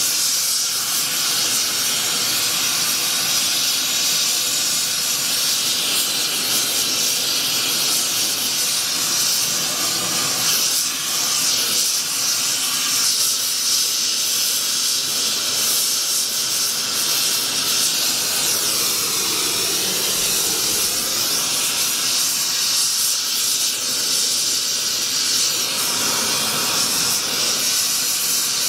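Gas brazing torch burning with a steady hiss as its flame heats a copper model-locomotive boiler to silver-soldering temperature.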